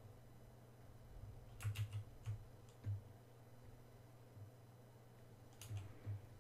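Computer keyboard keys clicking: a quick run of about five keystrokes about two seconds in, then two more near the end, over a faint low hum.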